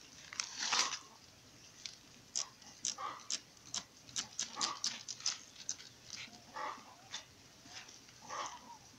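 Hand trigger spray bottle squirting in a quick series of short hissing sprays, several a second through the middle of the stretch.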